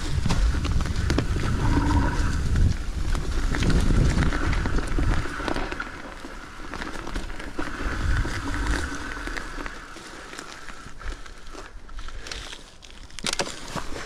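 Mountain bike riding a leaf-covered dirt trail: tyres rolling over dry leaves and dirt, with many small rattles and knocks from the bike. It is louder over roughly the first half and then quieter.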